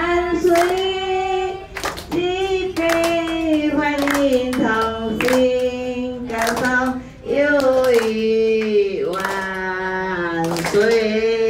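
A slow song sung with long held notes, with hands clapping along in time, roughly one clap every second.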